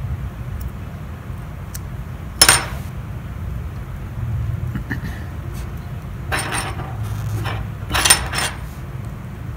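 Gold foil poster board scraping and crinkling under the fingers as a cut-out section is pried and peeled up, with a sharp metallic clink about two and a half seconds in as the metal X-Acto knife is set down on the table. A steady low hum runs underneath.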